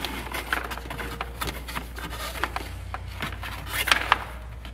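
Handling noise of airbrush hoses and their fittings being fed through holes in a plastic tool box: rubbing and scraping with scattered light knocks and clicks, and a denser run of clicks about four seconds in.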